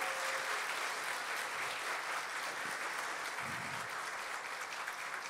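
Audience applauding: many people clapping together steadily, easing off slightly near the end.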